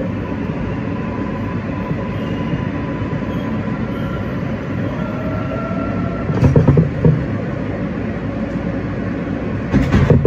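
R143 subway car in motion, heard from inside: a steady rumble of wheels on rail under faint electric propulsion whines that shift in pitch. Two clusters of loud clunks, about six and a half seconds in and again near the end, as the wheels pass over rail joints.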